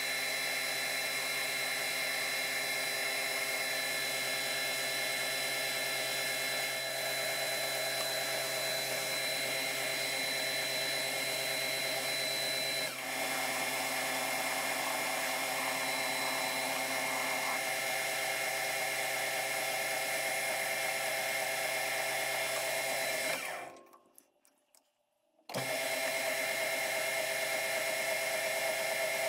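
Metal lathe running steadily, a whine made of several steady tones, while a shaft from a printer is turned down with a cutting tool. The sound cuts out for about two seconds near the end, then picks up again.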